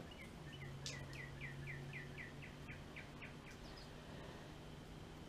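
A bird trills a quick run of about a dozen short chirps, about four a second, over a faint trickle of gasoline pouring from a jerry can's spout into a small plastic gas tank.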